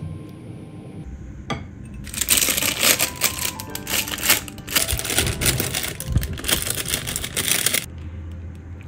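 Plastic piping bag filled with batter crinkling and rustling in a rapid crackle as it is gathered and twisted closed, starting about two seconds in and stopping shortly before the end, over background music.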